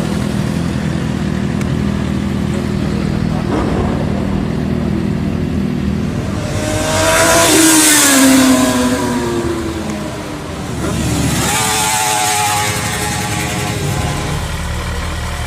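Four-cylinder sport motorcycle passing by about seven seconds in, loudest as it goes past, its engine pitch falling as it moves away. Another vehicle passes a few seconds later over a steady low engine running underneath.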